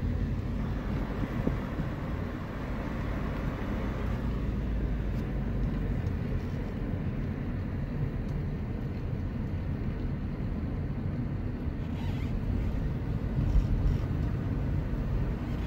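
Steady low rumble of a car driving along a road, engine and tyre noise heard from inside the moving car, with a light hiss in the first few seconds.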